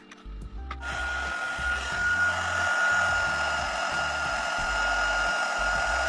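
Embossing heat gun switched on about a second in, then running steadily: a blowing hiss with a steady high whine, as it heats embossing powder on the lettering to melt it.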